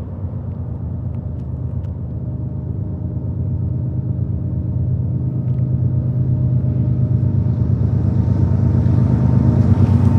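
Diesel locomotive engines at the head of a freight train approaching: a steady low rumble that grows louder throughout.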